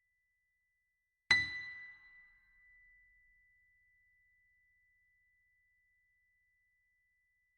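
A single bright chime is struck about a second in and rings out, fading over about two seconds. A faint steady high tone sounds underneath.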